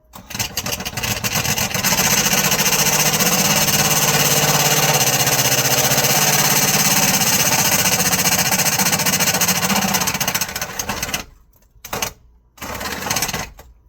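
Power drill running a cutting bit under load for about ten seconds with a fast rattle, then stopping and starting again in a few short bursts near the end.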